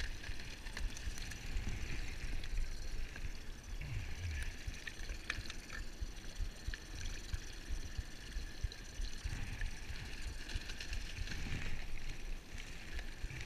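Water lapping and splashing against an inflatable boat's hull, over a steady low wind rumble on the microphone, with a few small clicks as fish are handled.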